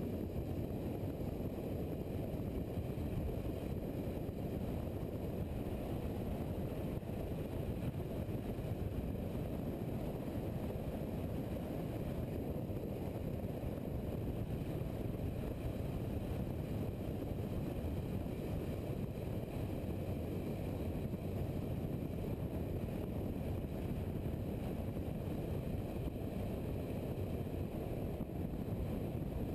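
Steady, muffled rumble of wind and engine noise from a motorcycle cruising along a road.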